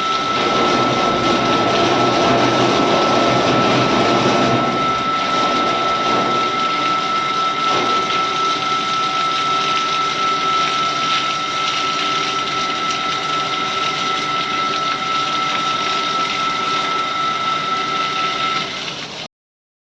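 Water jet of an IP65 test rig spraying a floodlight, with the pump running: a steady hiss of spray under a thin steady whine. It cuts off abruptly near the end.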